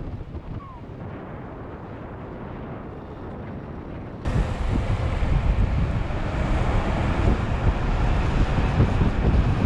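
Wind buffeting the microphone of a camera riding on a moving electric skateboard, a steady low rushing noise. About four seconds in it jumps abruptly louder and brighter.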